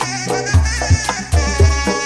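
Pencak silat accompaniment music: repeated deep drum strokes under a held, pitched melody line.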